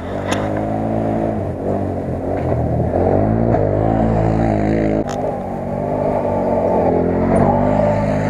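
ATV engine revving up and down repeatedly as the quad races along a dirt track, growing louder as it approaches in the second half.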